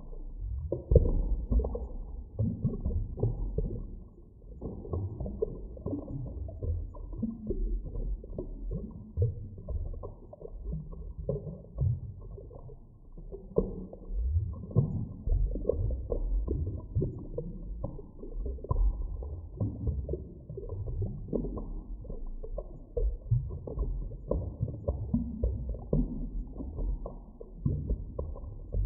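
Muffled underwater ambience: a continuous low rumbling and gurgling with small irregular surges, nothing high-pitched in it.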